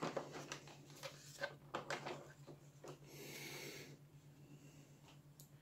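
Faint crinkling of a polythene bag and plastic blister tray, with a few small clicks as the model coaches are handled in their packaging, and a short louder crinkle about three seconds in.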